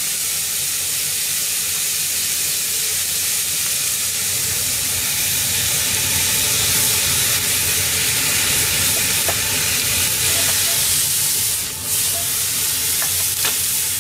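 Minced meat sizzling as it browns in a frying pan, stirred with a wooden spatula, with a few light scrapes near the end. A pan of pasta water boils alongside.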